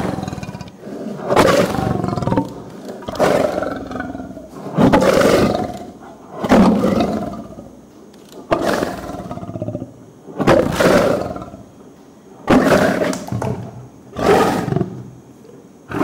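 Male lion roaring close up: a run of about eight loud, rough calls, one every two seconds or so.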